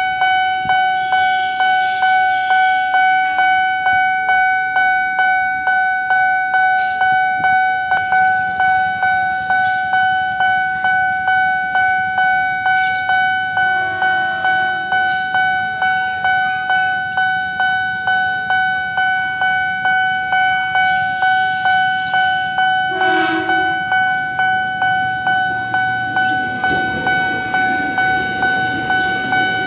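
Railway level-crossing bell ringing with even, rapid strikes throughout. A train horn blasts briefly about halfway through and again, louder, about three-quarters through, as a KRL electric commuter train approaches; its low rumble builds near the end as it begins crossing.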